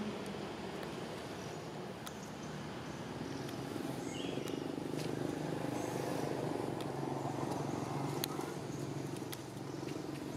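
Outdoor ambience: a steady low rumble with scattered light clicks and crackles, as of dry leaf litter being stepped on and handled, and a brief faint chirp about four and a half seconds in.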